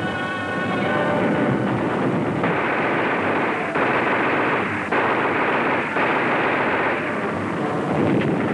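Artillery bombardment: heavy guns firing and shells exploding over a continuous rumble, with sudden loud blasts about once a second from a couple of seconds in.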